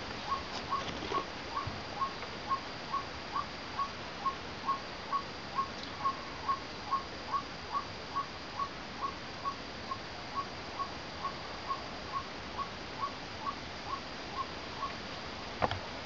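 White-breasted waterhen calling: one short mid-pitched note repeated steadily, about twice a second. A few clicks near the start and a couple of sharp knocks near the end.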